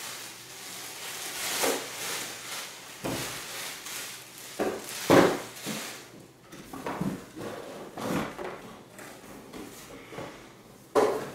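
Plastic wrap crinkling and cardboard packing scraping and knocking as a vacuum cleaner is worked out of its tall cardboard box, in a string of uneven rustles and knocks, the loudest about five seconds in.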